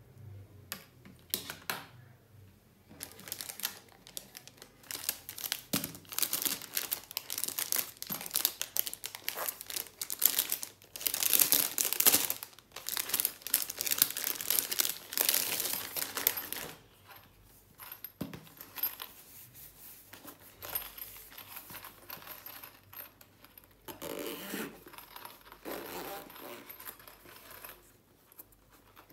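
Thin clear plastic wrapping crinkling and rustling as hands handle a pencil case and unwrap it from its bag. The crinkling is loudest and densest through the middle, then gives way to quieter handling.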